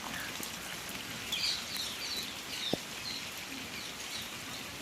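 Steady rain falling, with birds chirping now and then over it and a single dull knock a little past halfway.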